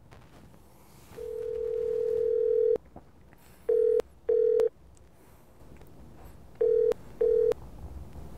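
Telephone call tones heard from a mobile phone: one steady tone for about a second and a half, then the double-beep ringback tone twice, a pair of short beeps every three seconds or so, as the call rings out waiting to be answered.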